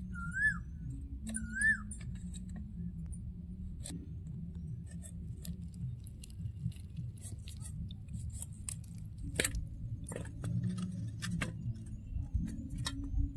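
A knife cutting slices off a raw green mango by hand, with irregular small clicks and taps as the slices are dropped into a steel bowl. A bird gives two short whistles that rise then fall in the first two seconds.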